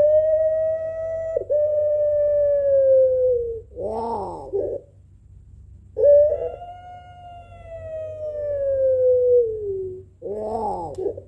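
Puter pelung, a long-voiced domestic Barbary dove, cooing twice. Each call is a drawn-out note of about four seconds that slides slowly down, ending in a short, rougher coo.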